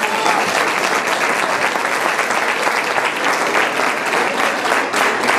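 Crowd of people applauding: a dense, steady clatter of hand clapping.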